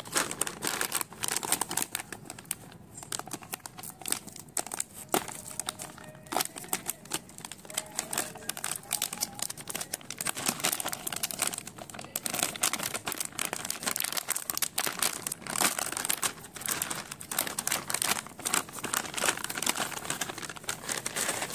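Plastic packaging of a DOMS Champions Kit stationery pouch crinkling and crackling as hands handle it and tear it open, a dense run of sharp crackles.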